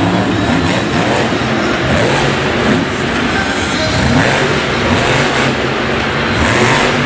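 Madusa monster truck's supercharged V8 running loud, revving up and down as the truck drives across the dirt arena.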